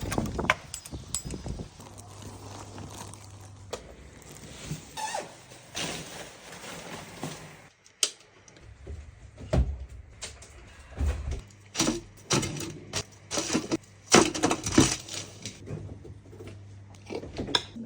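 Scattered knocks, clicks and clatter of kitchen work, over a faint steady low hum.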